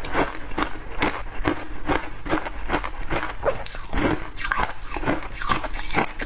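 A person biting and crunching through hard ice with the teeth, close up, in a quick run of sharp crunches, about three a second.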